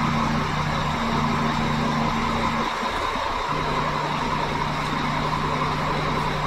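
Semi-truck diesel engine idling steadily while its compressor pumps up air pressure for the trailer's brakes.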